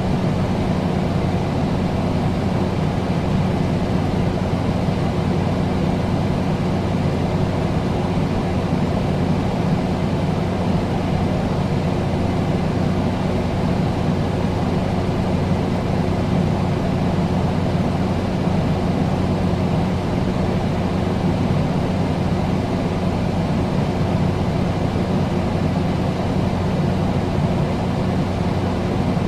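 Air conditioner running steadily: a constant low hum under an even rush of air, with no change in speed or pitch.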